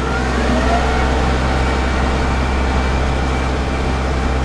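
Kubota L1-452 tractor's diesel engine running steadily while driving a Trimax Pro-Cut S4 mower, heard from on board, with a strong low hum. A brief rising whine comes in the first second.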